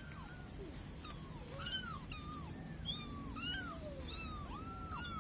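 Young kittens mewing over and over, thin high cries that rise and fall, about two a second and sometimes overlapping.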